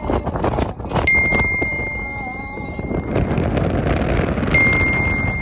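A bright bell-like ding strikes twice, about a second in and again near the end, each ringing on as a clear held tone. Under it runs the steady rumble of road and wind noise from a car driving at speed.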